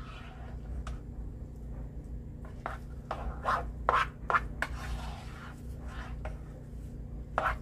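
A black plastic spoon scraping and stirring cooked white rice in a saucepan: a run of short, irregular scrapes against the pan as the rice is fluffed.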